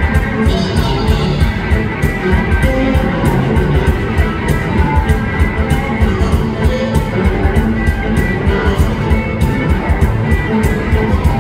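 Live blues band with two semi-hollow electric guitars playing over bass and a steady beat.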